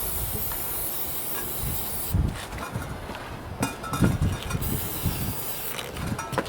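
Compressed air hissing in two bursts, one about two seconds long at the start and a shorter one later, with low knocks and handling noises between them.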